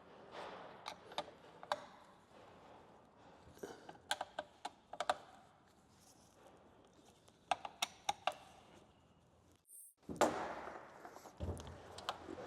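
Light clicks, taps and knocks of chainsaw parts, screws and tools being handled during reassembly, coming in a few short clusters. The sound drops out briefly near the end, then a louder rustling handling noise follows.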